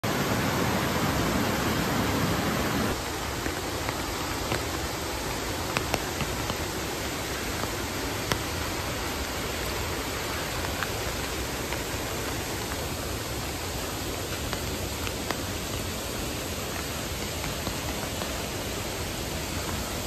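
Steady rush of a white-water mountain stream, loud for about the first three seconds. It then drops suddenly to a quieter, even rush of water with a few faint scattered ticks.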